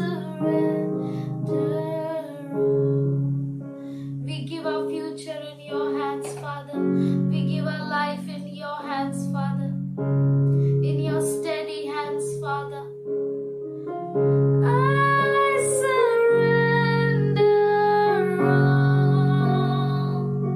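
Slow worship music: a woman singing long, held phrases over sustained keyboard chords.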